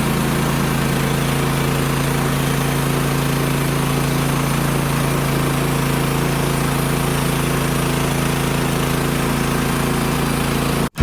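An engine running at a steady speed, with an even hum that does not change, cut off abruptly near the end.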